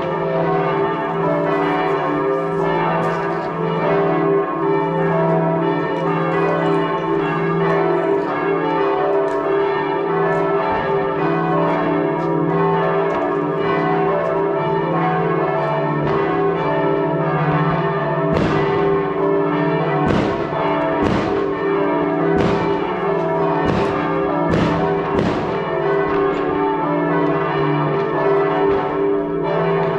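Church bells ringing steadily, several bells sounding together. A run of sharp firework bangs comes in the second half.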